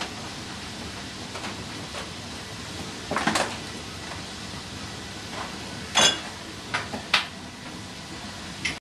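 Rummaging in an open refrigerator: scattered knocks and clinks of cans and containers, a longer clatter about three seconds in and the loudest sharp knocks about six and seven seconds in, as a cardboard case of beer cans is pulled from a shelf.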